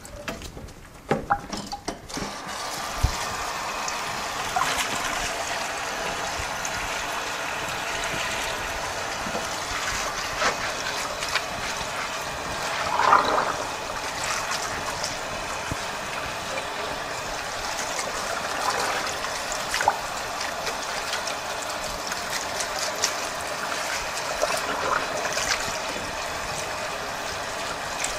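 Water running from a garden hose onto a mesh bag of sunflower seeds in a stainless-steel sink, a steady splashing stream that starts about two seconds in, as the seeds are rinsed by hand.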